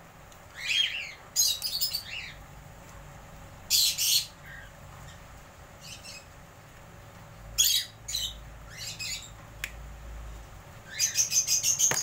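Aviary cockatiels calling: short chirps and squawks scattered through, and a fast run of harsh chattering calls near the end.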